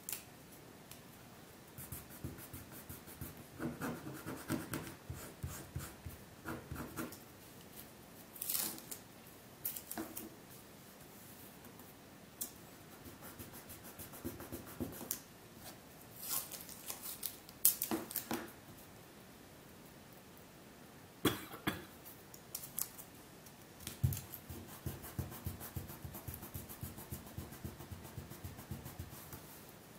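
Hands smoothing and pressing a paper pattern, held down with masking tape, onto leather over a plastic cutting mat. The sound comes and goes as rustling, rubbing and scratching, with scattered sharp clicks.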